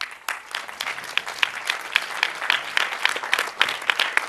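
Audience applause in a theater: many people clapping, starting suddenly and going on steadily.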